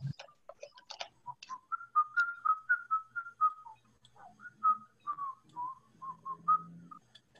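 A person whistling a tune in quick short notes, heard through video-call audio. A few clicks come in the first second or so.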